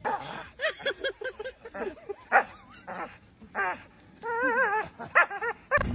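A dog giving a run of short, high yelps and whines while jumping up at a tree branch, with a longer warbling whine about four seconds in.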